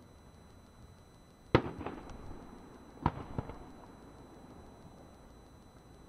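Aerial firework shells bursting. A loud, sharp bang comes about a second and a half in, trailing off with a few smaller pops, then a second bang about three seconds in with a smaller one just after it.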